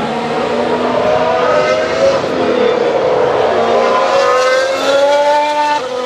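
Formula 1 car's turbocharged V6 hybrid engine heard from trackside: the pitch falls as the car slows into a corner, bottoms out about three seconds in, then climbs again as the car accelerates away.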